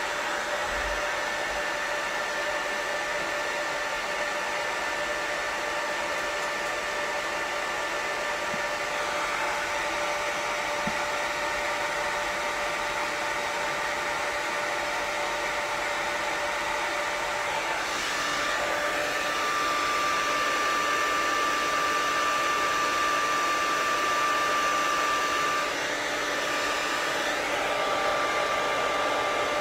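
Hand-held hair dryer with a diffuser attachment blowing steadily, a steady motor tone over the rush of air. A little over halfway through the tone shifts and it gets slightly louder.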